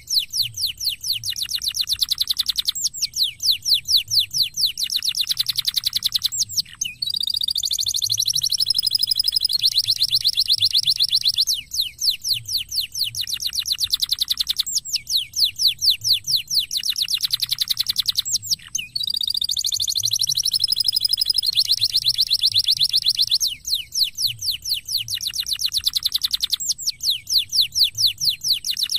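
Domestic canary singing long, fast trills: runs of rapidly repeated high notes, many of them falling in pitch. Each phrase lasts a few seconds, with short breaks between, and a slower warbling phrase comes twice.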